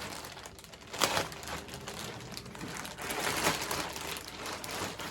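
Shoe-delivery packaging crinkling and rustling as it is handled and opened, with a sharper rustle about a second in and a busier stretch of crinkling near the middle.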